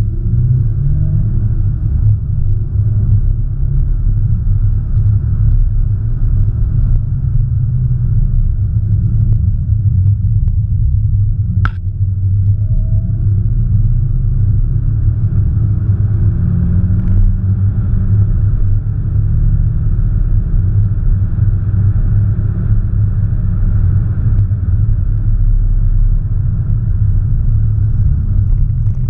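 A 2017 Audi S1 Sportback being driven: a steady low rumble of engine and road noise with faint, slowly wavering engine tones, and one sharp click about twelve seconds in.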